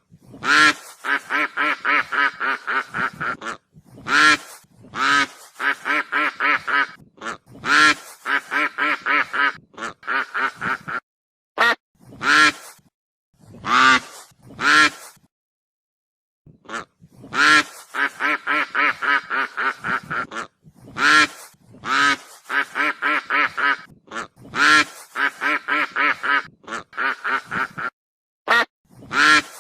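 Goose calling in runs of quick, nasal, repeated calls, about four or five a second, with louder single honks between the runs and a brief pause about halfway through.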